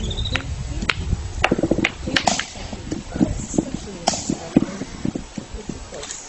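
A capuchin monkey knocking a stone against a nut on a wooden log to crack it: a series of sharp, irregularly spaced knocks, stone on nut and wood.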